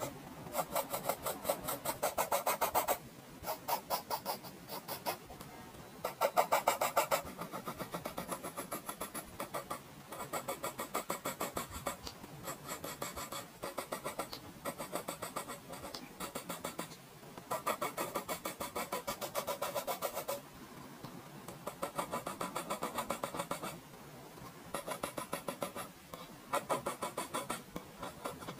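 An HB graphite pencil scratching across paper in quick runs of short back-and-forth hatching strokes, several a second, with short pauses between runs, as hair is shaded in.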